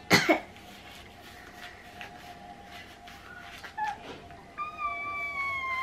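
A girl's voice making meow-like squeals. The first is a loud high squeal right at the start, falling steeply in pitch. The second is a long high note held about two-thirds of the way through, sliding slowly down.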